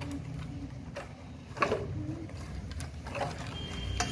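Sharp plastic clicks and knocks as a bus-shaped plastic pencil box is handled and turned over, about half a dozen, the loudest about one and a half seconds in, over a steady low hum.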